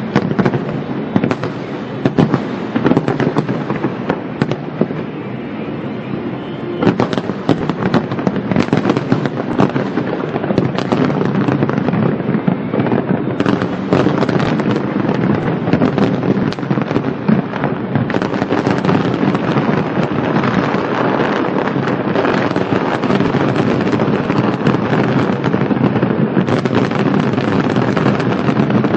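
Fireworks going off in a dense, continuous barrage of rapid crackling bangs. It grows thicker and louder after about seven seconds.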